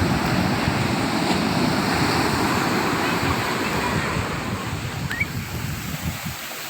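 Sea surf washing up the beach: a steady rushing wash of breaking waves that eases off near the end.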